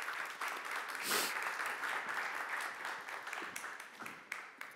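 Audience applauding in a large hall, a steady patter of many hands clapping that dies away near the end.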